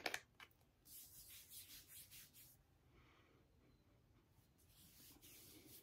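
Faint rubbing of hands over skin, spreading body lotion onto the forearm, starting about a second in and lasting about a second and a half; near silence after.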